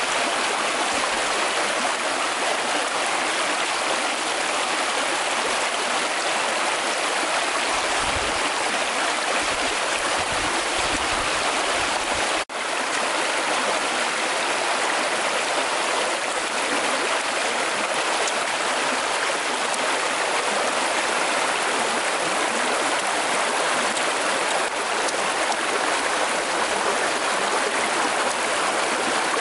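Shallow stream rushing over rocks: a steady rush of water, with one brief dropout about twelve seconds in.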